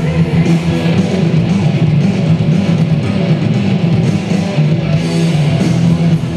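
Loud, continuous rock music driven by strummed guitars with bass.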